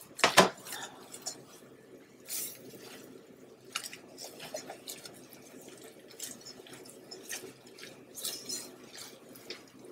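Silicone whisk stirring a thick, simmering flour roux in a nonstick pan: a soft wet sloshing with scattered light clicks and taps of the whisk against the pan, two sharper taps right at the start.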